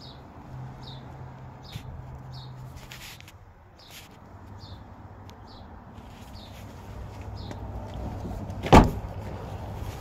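A Ford Escape door shutting with a single sharp slam near the end, over a low background with a steady low hum. A short high chirp repeats about every two-thirds of a second through the first part.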